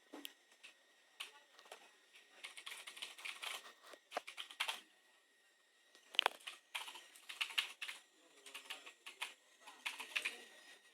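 Typing in bursts on a Dell XPS 13 9333 laptop keyboard, quick runs of key clicks with short pauses. Underneath runs a faint, steady, high-pitched whine. This is the noise problem, which the owner puts down to something near the left speaker, probably the keyboard-backlight inverter.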